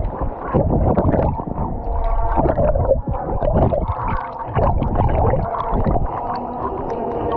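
Muffled, gurgling water heard by a camera plunged underwater in a swimming pool. A dog's splash entry comes at the start, and the churning and bubbling go on as the dog swims.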